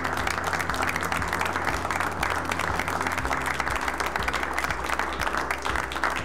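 Small audience applauding steadily with many hands clapping at once, over background music.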